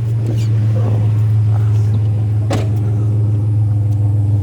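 A vehicle engine running steadily, a low even drone heard from inside the vehicle, with a single sharp click about two and a half seconds in.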